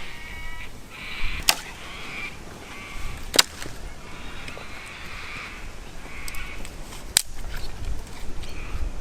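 Harsh crow-like cawing from birds, call after call, with three sharp pops from a campfire burning damp wood, about a second and a half, three and a half, and seven seconds in.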